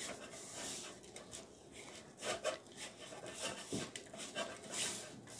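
Hands kneading dry, floury bait dough in a stainless steel bowl: soft, irregular rubbing and squishing strokes, a few of them slightly sharper.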